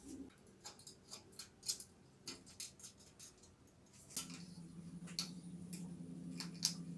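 Small irregular metal clicks and ticks from hands working a bicycle brake lever and cable, with a steady low hum coming in about four seconds in.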